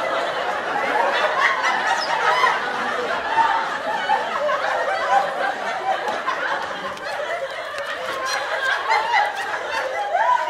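Continuous giggling and chuckling laughter, several voices overlapping without a pause.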